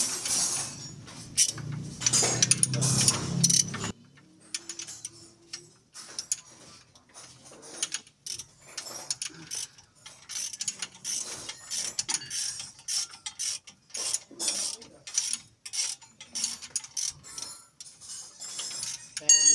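Hand ratchet wrench clicking in quick, uneven strokes as a bolt is turned during suspension and steering work. It comes after a louder mechanical noise that stops suddenly about four seconds in.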